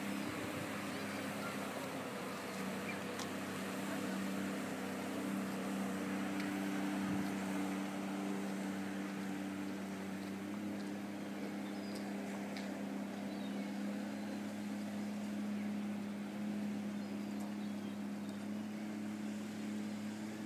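A boat engine running at a steady, unchanging pitch, over a light hiss of background noise.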